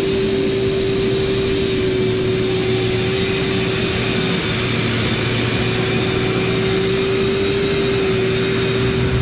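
A heavy engine running steadily at high speed, with a strong steady whine over a dense rumble.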